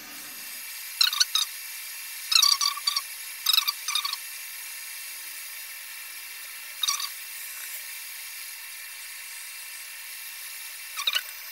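Hot-air rework gun blowing at full airflow, a steady hiss, as it heats a solder joint for desoldering. About six short, louder, higher-pitched bursts break in over the first four seconds, once near the middle and once near the end.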